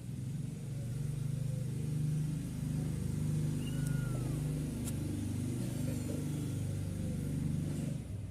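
Domestic cat purring close to the microphone, a low steady rumble that swells and eases in breaths about every second and a half and stops just before the end.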